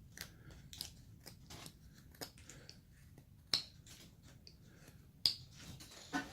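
Hand carving tool slicing small chips from a basswood carving: a quiet run of short, crisp cuts and scrapes, with two louder snapping cuts about three and a half and five seconds in.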